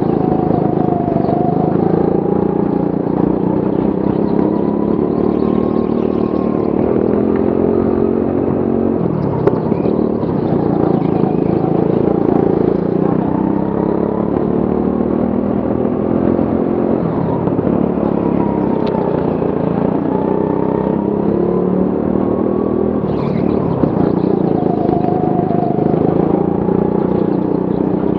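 Go-kart engine running hard at racing speed, heard on board, its pitch repeatedly rising and falling as the kart accelerates and slows through corners. A few brief knocks are heard along the way.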